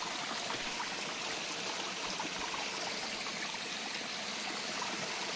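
Shallow rocky stream running over boulders, a steady rush of water.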